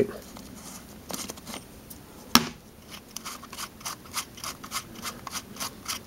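Small clicks and scrapes of a metal socket and a plastic nut being turned by hand on a quad's ignition lock cylinder, set in a plastic handlebar cover. One sharper click comes about two seconds in, then a quick, fairly even run of light clicks through the second half.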